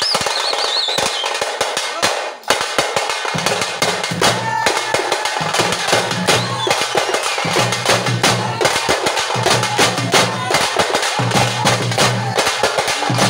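Thappu frame drums beaten fast with sticks in a dense, driving rhythm. A few high whistle-like glides sound near the start, and from about three seconds in a low steady tone comes and goes in stretches under the drumming.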